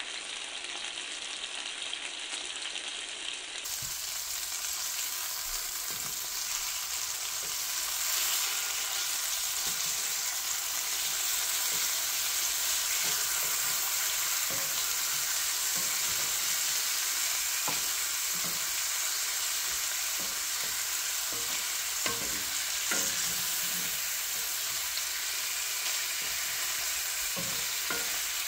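Seasoned walleye fillets sizzling steadily in butter and avocado oil in a cast iron skillet, with a wooden spatula now and then knocking against the pan as the fillets are turned.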